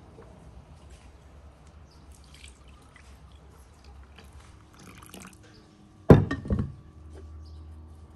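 Milk pouring in a thin stream from a clay jug into an enamel bowl of flour, eggs and oil, splashing softly. A few loud knocks come about six seconds in.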